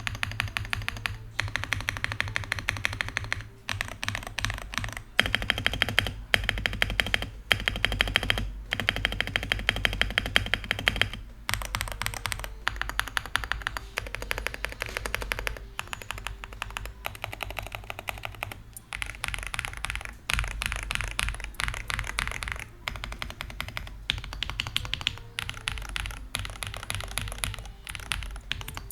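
Fast typing on an Akko 5098B mechanical keyboard with a gasket-mounted polycarbonate plate and foam dampeners: dense runs of key clacks in bursts with short pauses, the bottoming out sounding full and whole. Background music plays underneath.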